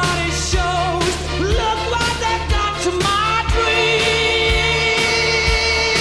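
Background music with singing over a steady beat; a long note is held through the second half.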